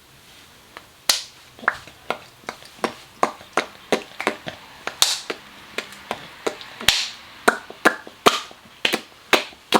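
A run of sharp slaps or taps, about two a second, starting about a second in and going on steadily.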